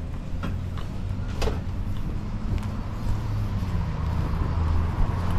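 Street traffic: a motor vehicle's engine running close by, a steady low hum that grows louder toward the end, with a few sharp clicks in the first second and a half.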